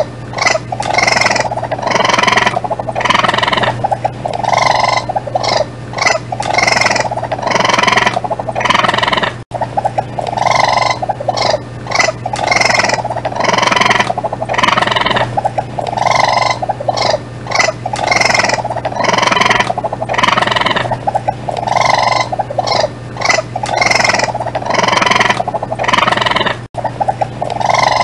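A raccoon calling in quick runs of short, repeated calls, over a steady low hum. There is a brief cut about nine seconds in and another near the end, and the run of calls appears to repeat as a loop.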